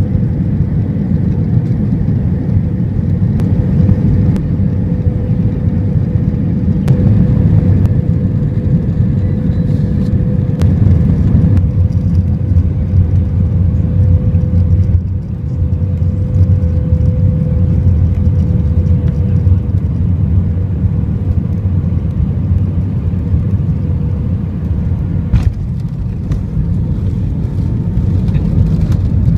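Jet airliner cabin noise on final approach with flaps extended: a loud, steady low rumble of engines and airflow with a steady droning hum over it, dipping briefly about halfway through.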